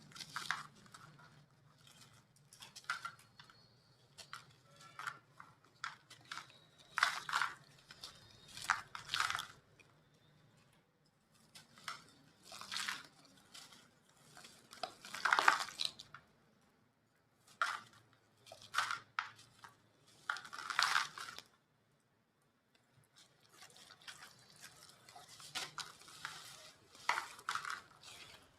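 Dry, gritty chunks of set white cement being crumbled and crushed: irregular crisp crunches in clusters, with short pauses between them and a longer pause about two thirds of the way through.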